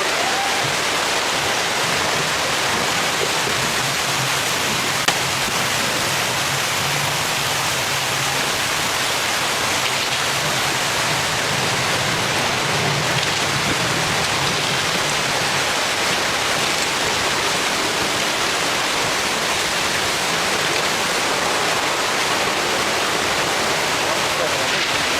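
Steady rushing water: an even, unbroken hiss that holds at the same level throughout.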